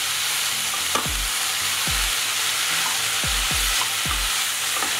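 Green beans sizzling as they fry in oil in a kadhai while being stirred with a spatula. A low thud recurs about once a second over the steady sizzle.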